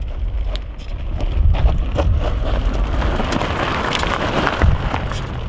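Fat tyres of a twin e-bike off-road wheelchair rolling over a gravel track, with scattered clicks of stones under the wheels. The crunch of gravel swells as it passes close, loudest about four seconds in, over a steady low rumble.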